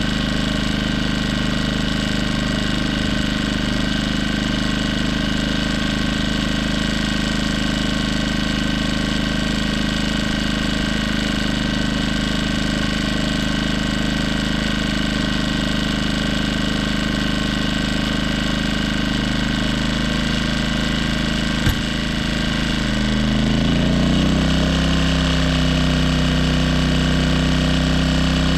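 Firman W2000i inverter generator running steadily. Near the end there is a sharp click, and then the engine speeds up and runs a little louder.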